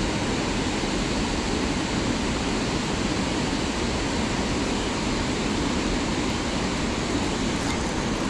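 Steady rushing of river water pouring over a low-head dam spillway, an even, unbroken noise.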